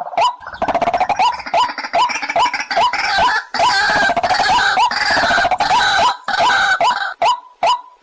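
White-breasted waterhen calling: short hooked notes repeated about twice a second, with a dense run of harsh croaking, gurgling calls over them for most of the time. The harsh calls stop about a second before the end, leaving the repeated notes.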